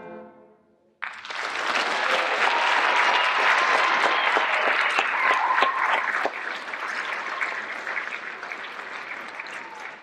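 A school concert band's final chord dies away, and about a second in the audience starts clapping all at once; the applause holds steady and slowly tapers off near the end.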